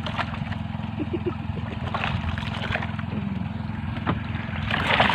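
An engine aboard a wooden outrigger fishing boat running at a steady drone, with water sloshing and splashing against the hull and outriggers, a louder splash of water near the end.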